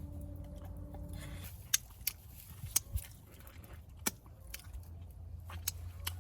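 Chewing and crunching on barbecued ribs and their bones, with a few sharp clicks or crunches scattered through it over a steady low rumble.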